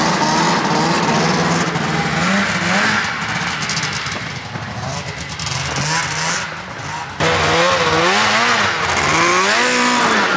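1998 Polaris XC 700 snowmobile's two-stroke twin engine revving as the sled pulls away and rides off, pitch rising and falling with the throttle. The sound jumps abruptly louder about seven seconds in.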